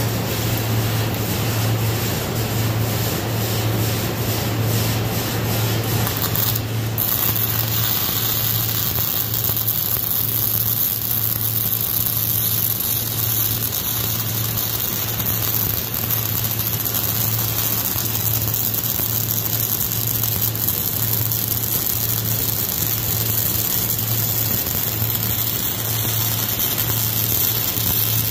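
Wire-feed (MIG) welding arc crackling and hissing steadily as a long weld bead is run, starting about seven seconds in, over a steady low hum.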